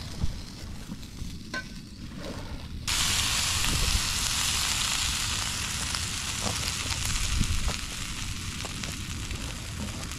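Sausages frying in a pan on a gas camping stove, a faint sizzle that jumps suddenly to a loud, steady sizzle about three seconds in as chopped tomatoes go into the hot pan, easing a little near the end.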